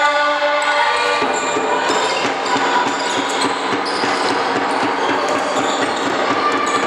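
Indoor handball play: the ball bouncing and shoes squeaking on the sports-hall floor over a busy, echoing din of the hall. A steady pitched note stops about a second in.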